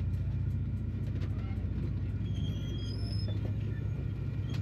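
Union Pacific passenger cars rolling past close by on the track: a steady low rumble of wheels on the rails, with a few brief faint high squeaks about halfway through.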